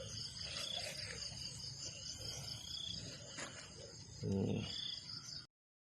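Steady chorus of crickets and other insects, a shrill high drone in several even layers. A short low voice-like sound comes about four seconds in, and all sound cuts off abruptly just before the end.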